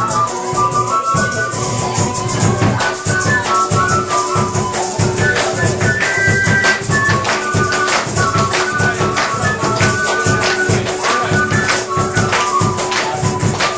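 Music: a melody of short stepping notes over a long held lower note, with a steady, quick beat of percussion strokes.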